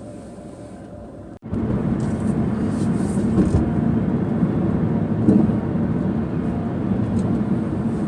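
Car on the move: a steady low rumble of road and engine noise. It comes in abruptly about a second and a half in, after a quieter stretch.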